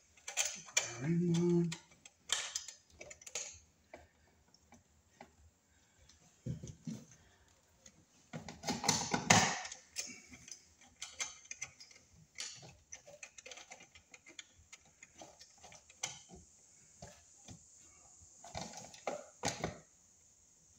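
Irregular clicks, taps and scrapes of stiff electrical cable and wires being handled and pushed into a metal breaker panel box. A louder rustling scrape comes about nine seconds in, and a brief low hum sounds about a second in.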